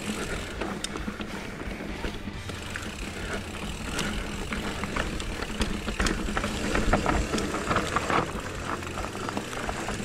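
Electric mountain bike being ridden down a dry dirt trail: tyres rolling over the ground, with frequent clicks and rattles from the bike and a steady low hum underneath.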